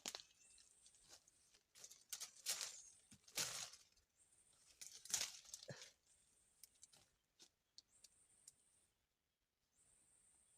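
Faint rustling and crinkling in a few short bursts, like dry material being handled, over a thin high buzz that comes and goes.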